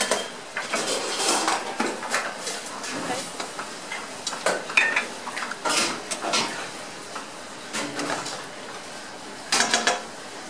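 Stainless-steel saucepan, bowl and utensils clattering and knocking as they are handled, with a spatula stirring in the pan; a quick run of sharper knocks near the end.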